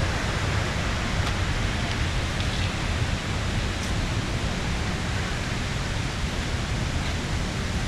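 Steady rushing of water from a mountain stream or waterfall: an even hiss with a deep rumble underneath.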